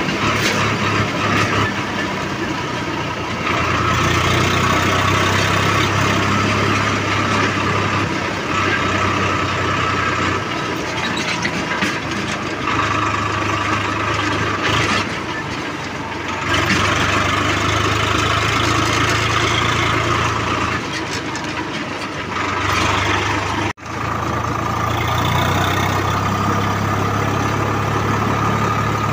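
Diesel farm tractor engine running while the tractor is driven along a road. Its steady note grows louder and quieter in turns. Near the end the sound cuts out for an instant.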